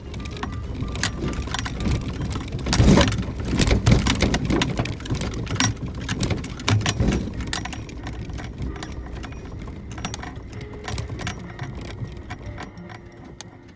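Suzuki Jimny JB64 driving down a rough gravel forest road: a low engine and road rumble under a run of clinks, rattles and knocks, heaviest a few seconds in and easing off near the end.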